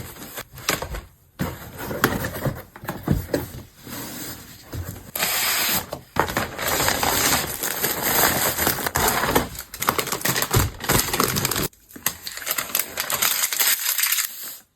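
Crinkling and tearing of paper or plastic: irregular crackles at first, then a long stretch of dense scratchy noise from about five seconds in until near the end, then scattered crackles again.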